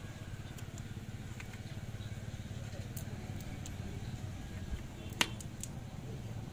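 Pliers working the end of a THHN wire to strip its insulation: a few light clicks and one sharper click about five seconds in, over a steady low background rumble.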